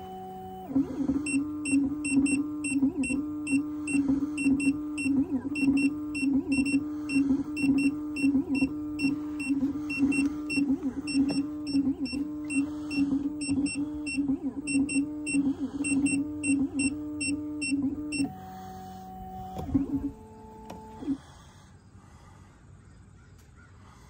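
Black Widow key machine running a key decode: its motors whine at one steady pitch over a fast, regular high ticking. About three-quarters of the way through the motor pitch changes in short steps, and then it stops.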